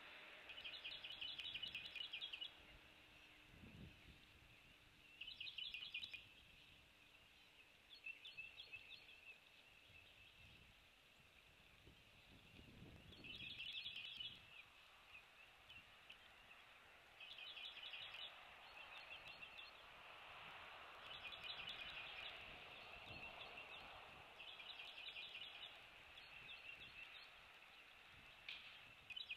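A bird singing a short, rapid trill over and over, about once every three to four seconds, faint over a steady hiss.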